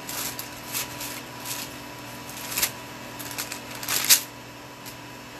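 Thin Bible pages being leafed through by hand: a series of short paper rustles, the loudest about four seconds in.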